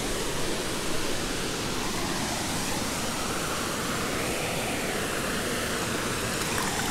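Steady rushing of a waterfall and its stream, an even wash of water noise.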